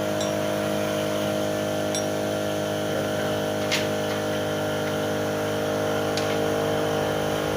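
Steady mechanical hum at constant pitch, with one sharp metallic click a little before the middle and a few faint ticks.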